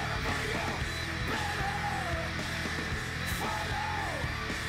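Rock music with guitar and a singing voice. The voice holds two long notes, each falling away at its end, one in the middle and one near the end.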